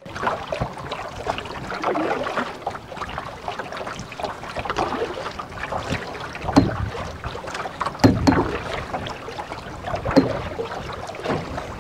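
Paddle strokes through lake water beside an aluminium canoe, a swell of water noise about every two seconds, with a few sharp knocks in the second half.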